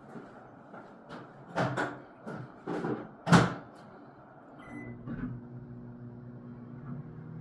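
Several knocks and clatters of a door and kitchenware being handled, then a short keypad beep about five seconds in and a microwave oven starting up with a steady hum, warming food.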